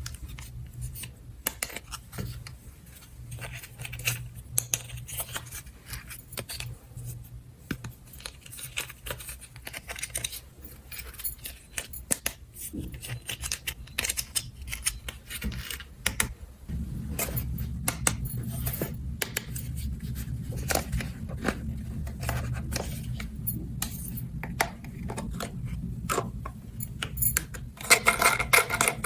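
Small plastic toy parts clicking, tapping and rattling as they are handled, with a denser burst of rattling near the end, over a steady low hum that gets louder about two-thirds of the way through.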